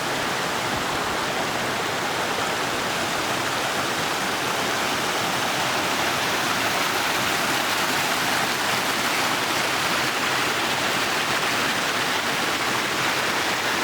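Waterfall and rushing stream water: a steady, dense hiss.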